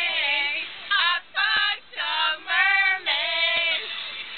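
Young female voices singing in short, broken phrases, with two faint clicks in between.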